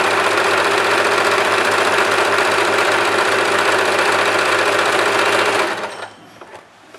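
Usha Janome Allure electric sewing machine running steadily at speed, sewing a rickrack (triple zigzag) stretch stitch. It stops suddenly near the end.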